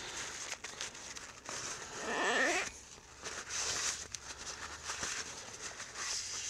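A rag rubbing and rustling as it wipes out the plastic top cover of a motorcycle carburetor's vacuum chamber, cleaning the diaphragm seat. About two seconds in comes one short rising squeak.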